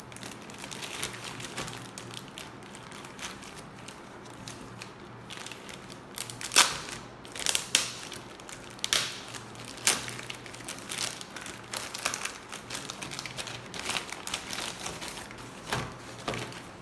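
Earphone packaging being opened and handled: crinkling and rustling with frequent sharp crackles and snaps, the loudest a few seconds apart from about six and a half seconds in.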